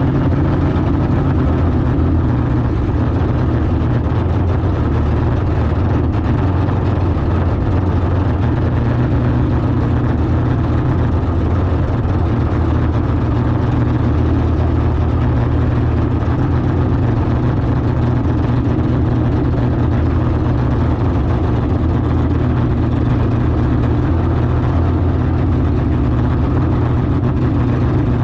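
Drag car's engine idling steadily, deep and even, with no revving.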